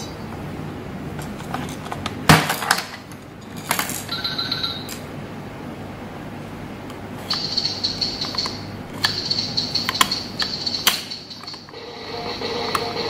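Hard plastic clicks and knocks as a VTech Turn and Learn Cube toy is turned over and handled, with one loud knock about two seconds in and a steady high electronic tone from the toy's speaker later on. Near the end, as its drum button is pressed, the toy starts playing a tune.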